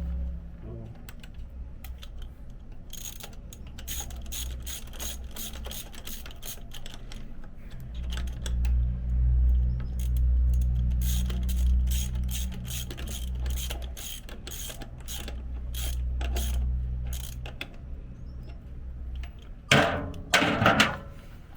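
Socket ratchet wrench clicking in quick runs as bolts are turned on a truck's starter and alternator, over a low steady hum. A couple of louder knocks come near the end.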